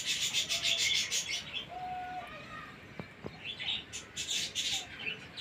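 Budgerigars chattering and chirping in their cage: a fast, busy burst of chatter in the first second, then scattered chirps, with a single click about three seconds in.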